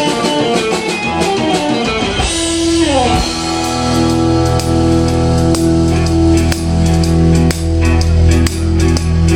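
Live blues band kicking off a song after a count-in: electric guitar plays a quick run of notes, slides down in pitch about two and a half seconds in, and the band comes in with held chords over a steady drum beat.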